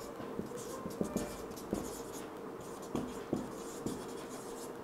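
Marker writing on a whiteboard: a string of short, faint strokes and taps at irregular intervals as letters are drawn. A faint steady hum runs underneath.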